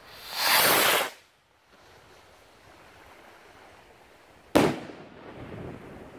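A stick rocket firework launching with a loud whooshing hiss that lasts about a second, then, about three and a half seconds later, a single sharp bang as it bursts in the air.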